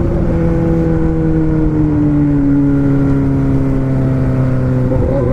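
Four-cylinder car engine running, its note falling slowly as the revs drop, then stepping up a little near the end.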